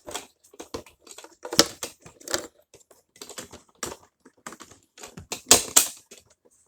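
Plastic toy pieces and packaging being handled: irregular clicks, taps and crinkling rustles, with louder rustling bursts about one and a half seconds in and again near the end.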